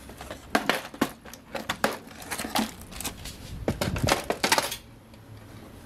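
Rummaging through plastic craft storage: a clear plastic box is pulled from a shelf and its contents rattle and clack, with plastic bags crinkling, in a busy run of small knocks that stops about five seconds in.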